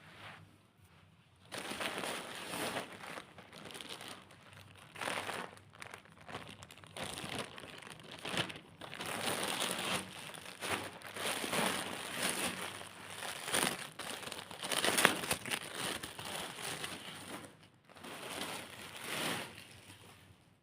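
Packaging crinkling and rustling in irregular bursts as a parcel is unboxed by hand.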